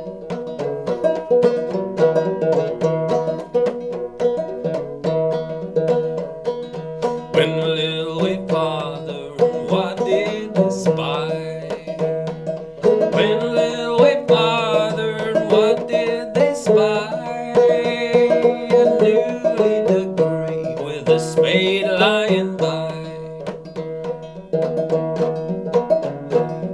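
Old flush-fret open-back banjo with a skin head and Nylgut strings, played clawhammer in sawmill tuning with a steady, rhythmic pattern. A man sings over it in several phrases from about a quarter of the way in until near the end.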